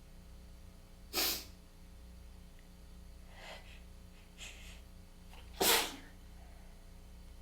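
A person sneezing twice, about four and a half seconds apart, as part of a congested sneezing fit, with quieter quick breaths between the sneezes.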